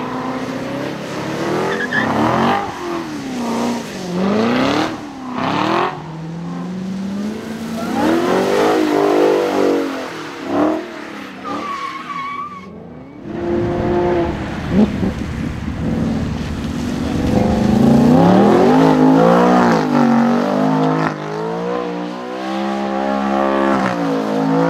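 Sports cars drifting on a wet track: first a Chevrolet Corvette C7's V8, then a Dodge Challenger, revving up and down again and again as the throttle is worked through the slides, with tyre noise underneath.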